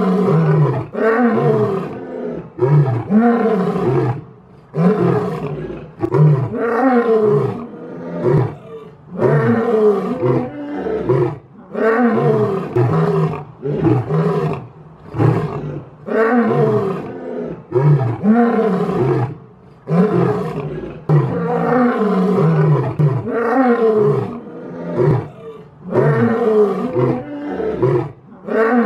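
Lion roaring: a long series of short, deep calls, about one a second, each rising then falling in pitch, with a few brief breaks between bouts.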